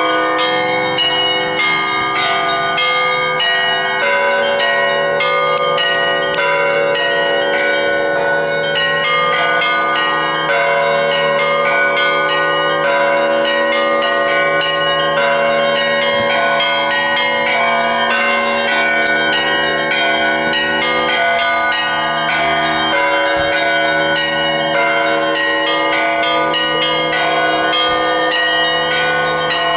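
Russian Orthodox church bells rung together in a continuous peal (kolokolny zvon). Small bells are struck rapidly over the sustained hum of the larger bells, and the pattern of low notes shifts a few times.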